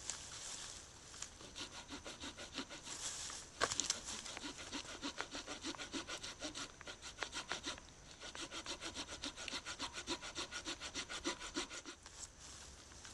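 Hand saw cutting a dead branch on a conifer trunk: quick back-and-forth strokes in three runs with short pauses between, and a sharp crack a little before the middle.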